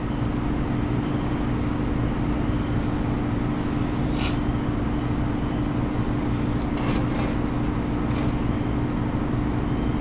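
Steady machine hum of garage equipment, with one constant low tone over a low rumble. A few faint light clicks from small brake parts and a lubricant tube being handled on the bench, about four seconds in and again a few seconds later.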